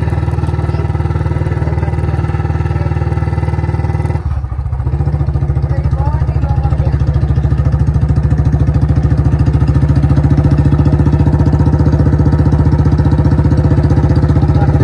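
Royal Enfield Bullet's single-cylinder engine running steadily under way. About four seconds in the sound briefly drops, then it runs on a little louder with a fast, even beat.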